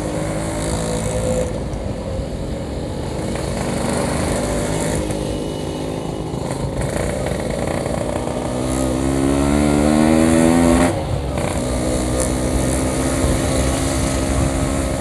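Yamaha RX-King's 135cc two-stroke single-cylinder engine running under way, revving up steadily from about eight seconds in and dropping off sharply around eleven seconds as the throttle shuts or the gear changes, then running at a steady pace again.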